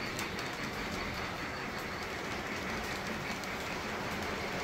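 Model freight train cars rolling past along the track: a steady running noise of wheels on rail with faint light clicks.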